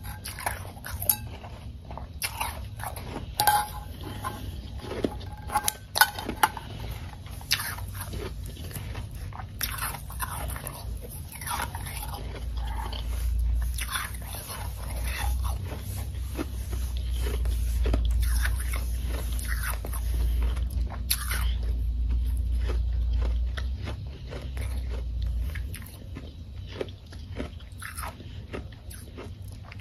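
Close-up crunching of a mouthful of powdery ice being bitten and chewed: many sharp crisp crunches, loudest and most frequent in the first ten seconds or so. A low rumble swells and is loudest from about twelve to twenty-five seconds in, then fades.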